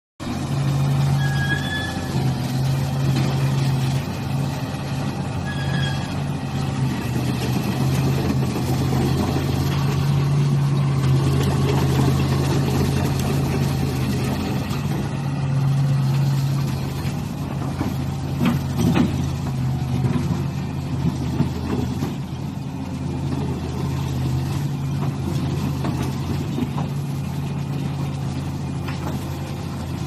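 A Komatsu PC350 hydraulic excavator's diesel engine runs steadily while the boom and bucket are worked. The engine note swells and eases with the load. A few sharp knocks come about two-thirds of the way through.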